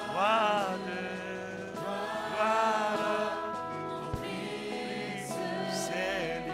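Gospel worship music: a voice sings long notes that glide up and down over steady held chords.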